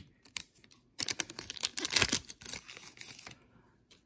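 Plastic wrapper of a basketball trading card pack crinkling and tearing as the pack is opened: a dense run of crackles lasting about two seconds, starting a second in.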